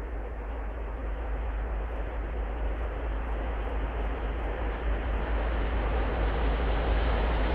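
ST44 (Soviet-built M62) diesel locomotive's two-stroke V12 engine working under load as it approaches at the head of a freight train: a steady, deep rumble that grows steadily louder.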